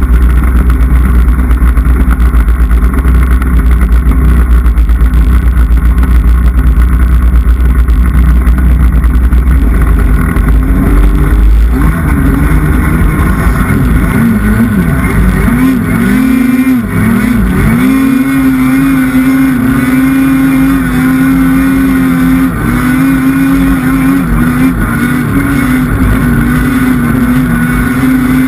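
Polaris snowmobile's two-stroke engine running hard under throttle, loud, with a heavy low rumble through the first half. About halfway through, the engine note swings down and back up a few times as the throttle is worked, then holds a steady high pitch.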